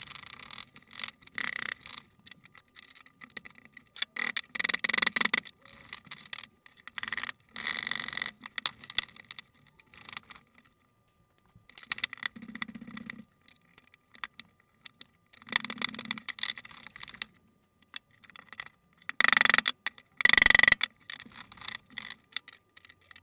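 Irregular hammer blows on a wooden chair leg and a block clamped against it, each with a short ring, as a stuck glued leg joint is knocked at to drive it apart. The two loudest blows come near the end.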